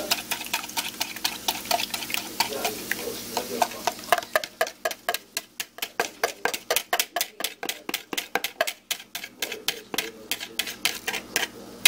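Fork clicking against a ceramic bowl while beaten eggs are whisked and scraped out into a hot cast iron skillet. The clicks are irregular at first, then settle into a fast, even rhythm of about five a second, with faint sizzling from the pan underneath.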